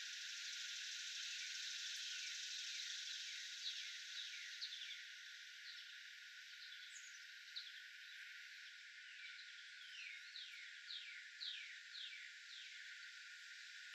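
Faint outdoor nature ambience: a steady hiss with a bird calling over it in a series of short, downward-sliding notes, coming faster near the end.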